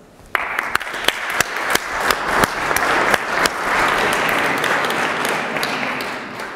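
Audience applauding in a hall: a dense patter of many hands clapping that starts abruptly just after the start and dies away near the end.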